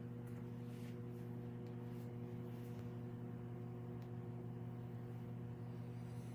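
Steady low electrical hum with a constant pitch, unchanging throughout.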